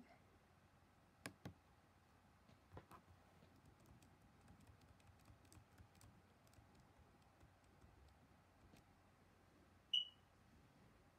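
Faint clicking of laptop keys, a few sharper clicks and then a run of light taps, as text is deleted key by key. About ten seconds in comes a single short high-pitched beep, the loudest sound here.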